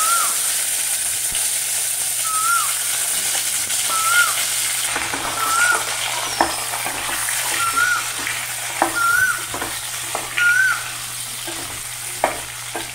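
Raw mango pieces sizzling as they hit hot mustard oil in a pot, with a spatula knocking and scraping against the pan as they are stirred. A short high chirp repeats about every second and a half.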